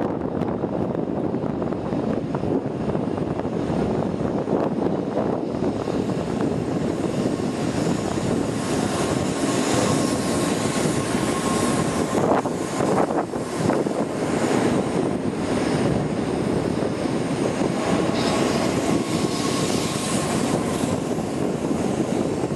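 N700 series Shinkansen train pulling out of the platform and gathering speed past the listener: a steady rush of wheels and air that grows brighter and hissier a few seconds in, with a faint whine at times.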